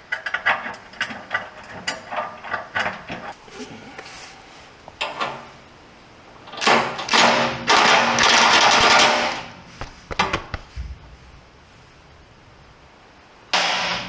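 Ryobi cordless impact wrench driving a bolt in the Land Rover Defender's chassis. A run of short sharp knocks comes first, then a long hammering burst of about two and a half seconds from roughly six seconds in, and a shorter burst near the end.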